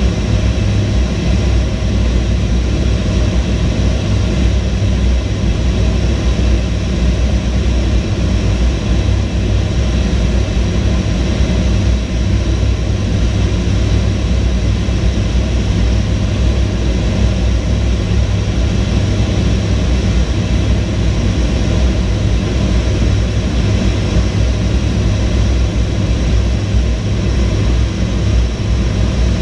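Steady cockpit noise of an A-10 Thunderbolt II in flight, heard from inside the canopy: a constant low rumble from its twin turbofan engines under an even rush of airflow, with no change through the whole stretch.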